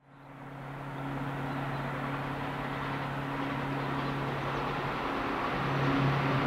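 Diesel engine of an approaching yellow Strabag track maintenance machine, a steady low drone fading in and growing a little louder near the end.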